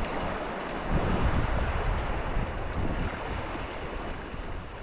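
Rushing river water with wind buffeting the microphone in uneven low gusts, slowly growing quieter.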